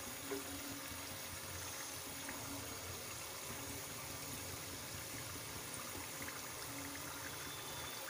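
Samosas deep-frying in hot oil in a kadhai: a steady sizzling and bubbling of the oil, with one light knock just after the start.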